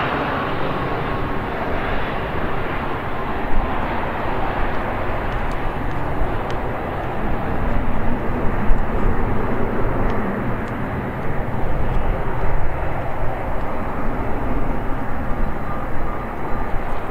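Airbus A220-300 jet engines running as the airliner rolls along the runway: a steady rushing jet noise that swells a little midway.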